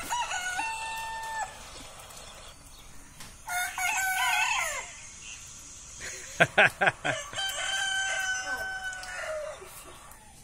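Rooster crowing three times in long, drawn-out crows: a crowing recording played from a mobile phone, and the live pet rooster answering it. A quick run of four short, sharp sounds comes between the second and third crows.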